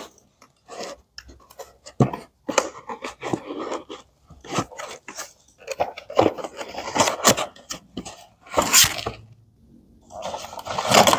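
A cardboard toy box being opened by hand and a clear plastic toy train slid out of it: an irregular run of short scrapes, crunches and taps of cardboard and plastic, loudest near the end.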